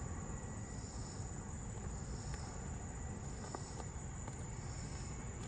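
Insects singing in a steady high drone, with a softer rhythmic pulse about once a second, over a constant low outdoor rumble.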